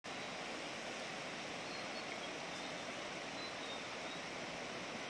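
Shallow mountain river running over rocks and riffles: a steady, even rush of water.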